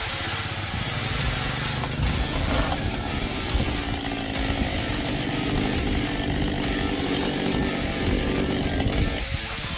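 Chainsaw engine running, rising to a steady high-speed whine a couple of seconds in and cutting off abruptly near the end.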